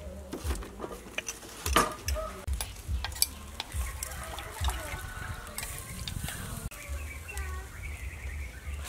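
A metal spoon clinks sharply against a ceramic plate several times while stirring shredded green mango salad. In the second half, faint bird calls come through.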